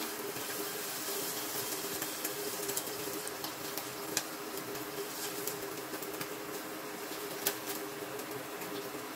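Onions, garlic and chili powder sizzling gently in oil in a pan on an induction cooker, stirred with a wooden spoon that knocks against the pan a few times, over a steady hum.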